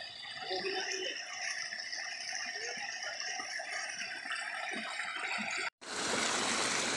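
Shallow stream water splashing and trickling around wading legs, with scattered light clicks. After a sudden break near the end, a louder steady rush of water pours close by.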